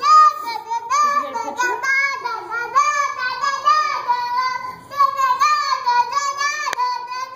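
A young child singing wordlessly in a high voice: a run of held notes that slide up and down between pitches, with a single sharp click near the end.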